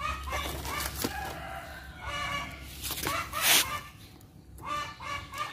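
Chickens clucking in repeated short calls, with a brief loud noisy burst about three and a half seconds in.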